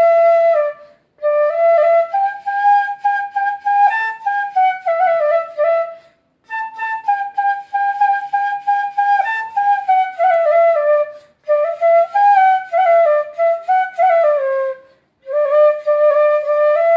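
Bansuri, the Indian bamboo flute, playing a solo melody in four or five phrases separated by brief pauses.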